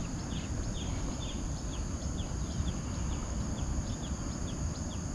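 Rural outdoor ambience: insects droning steadily at a high pitch, with short falling chirps repeating about twice a second over a low rumble.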